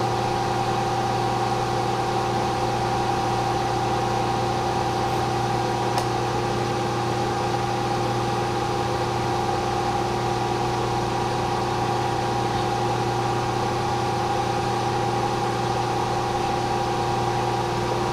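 Milling machine running steadily: a constant motor and spindle hum with several steady tones and no change in speed.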